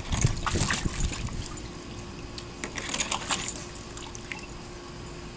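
Huskies splashing and lapping in the water of a plastic wading pool as they go after fish, in short splashy bursts during the first second and again around three seconds in.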